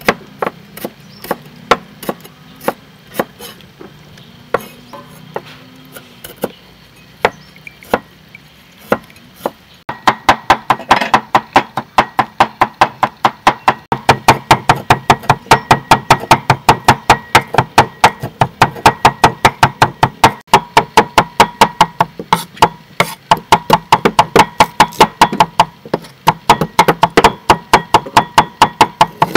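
Cleaver chopping soaked dried red chilies on a wooden chopping block. Scattered knocks at first, then from about ten seconds in a fast, even run of strikes, about three or four a second.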